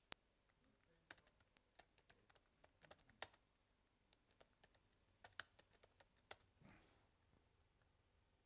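Faint typing on a laptop keyboard: scattered keystrokes in irregular quick runs.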